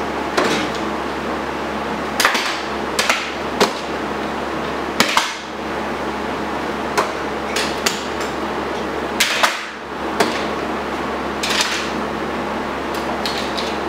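A series of irregular, sharp knocks and clacks of hard objects being handled, about a dozen in all, over a steady mechanical hum.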